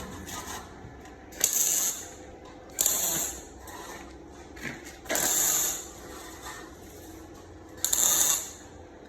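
Kobe 3000 Pro MIG welder's arc struck in short bursts: four separate crackling, hissing welds of about half a second to a second each, with quiet gaps between.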